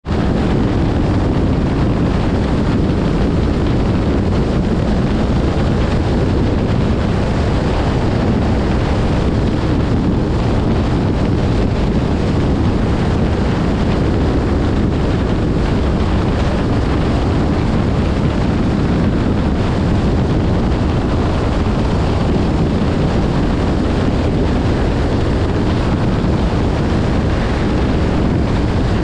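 Dodge Challenger cruising at highway speed: a steady, loud rumble of road and engine noise with wind buffeting the microphone.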